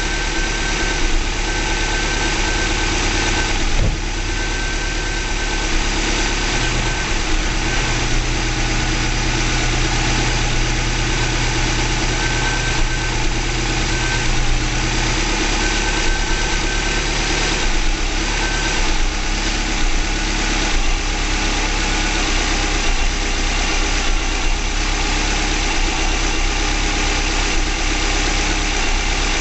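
Freshly rebuilt EJ255 2.5-litre turbocharged flat-four of a 2005 Subaru Legacy GT idling steadily. A low, steady hum joins in for several seconds in the middle.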